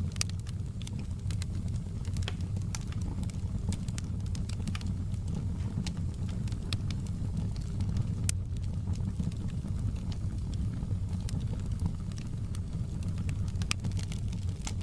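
Wood fire burning in a fireplace: a steady low rumble with frequent sharp crackles and pops scattered irregularly throughout, a few of them louder.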